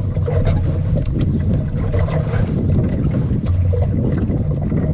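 Water rushing and splashing along the hull of a small wooden sailing dinghy as it crosses a motorboat's wake, with a steady low rumble of wind buffeting the microphone.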